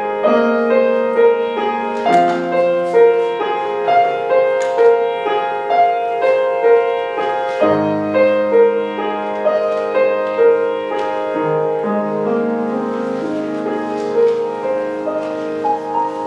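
Grand piano played solo: an even, flowing run of treble notes over sustained bass notes, with a deeper bass note coming in about halfway through.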